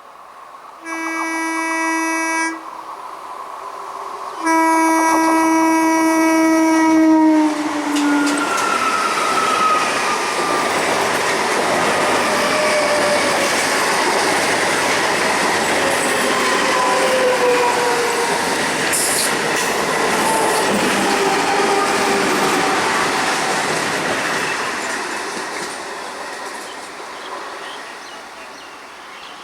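A passing Indian Railways train sounds its horn twice, a short blast then a longer one of about three seconds that drops in pitch at its end as the train passes. The rattle of the wheels on the rails follows, with some wheel squeal, and fades out near the end.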